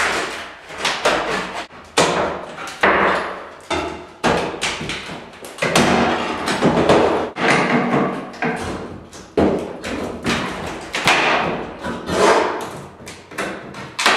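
Flat pry bar knocked and levered behind painted wooden door casing, with irregular knocks and scraping as the trim is worked loose from the wall.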